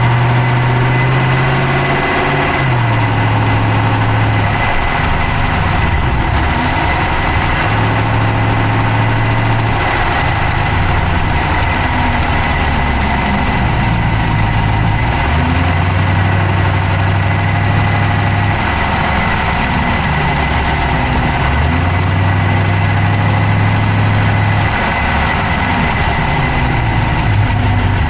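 Dodge Charger's Hemi V8 idling, heard from inside the engine bay, with a fast clicking over the engine note. A low hum steps up and down in pitch every few seconds.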